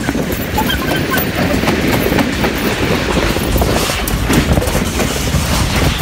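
Steady rattling rumble of an amusement ride rolling at speed, with wind rushing over the microphone.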